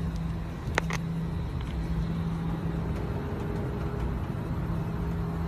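Steady low rumble and hum of a private jet's cabin, with two quick sharp clicks about a second in.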